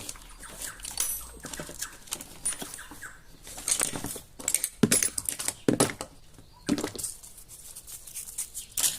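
Rummaging among tools and small hard objects on a workbench to find a piece of sandpaper: irregular clicks, clinks and rattles of things being picked up and moved.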